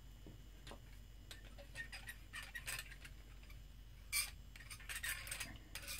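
Small hand roller rolled along the seams of a soft clay slab vase, giving faint, irregular clicks and ticks that grow busier after the first second or two, with a louder cluster about four seconds in. The rolling presses the joined sides together to seal the seam.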